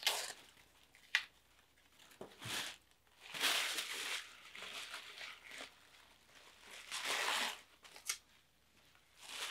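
Tissue paper crinkling and rustling in several bursts as small plastic vials are unwrapped from it, with a couple of sharp clicks as vials are set down on a wooden table.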